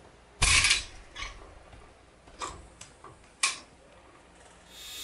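Footsteps on a hard floor, a louder thump about half a second in followed by sharp steps about a second apart. Near the end a rush of noise rises steadily.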